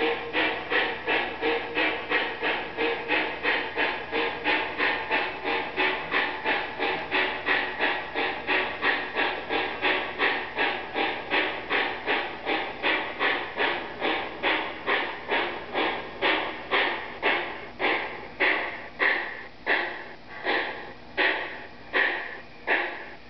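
Sound-equipped model steam locomotive chuffing in a steady rhythm. The chuffs slow from about three a second to just over one a second in the second half as the locomotive slows down.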